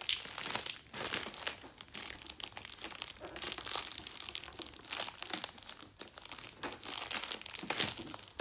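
Cardboard LEGO City set box being slit and opened by hand: irregular crinkling, scraping and crackling of cardboard and its seals, with small tearing sounds.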